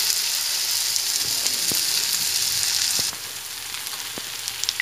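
Dahi pakora (yogurt-batter fritters) sizzling steadily as they deep-fry in hot oil in a frying pan, with a few faint clicks. The sizzle drops suddenly to a quieter level about three seconds in.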